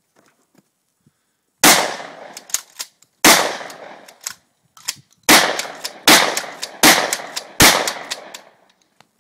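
Six gunshots from a handheld gun. The first two come about a second and a half apart and the last four come quicker, under a second apart. Each shot trails off in a long echo.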